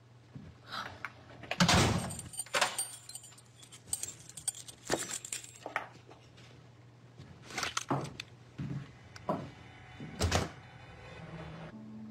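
A front door being unlocked with keys, opened and shut, followed by scattered knocks and clicks of someone moving at the entrance. The loudest knocks come near the start and again near the end.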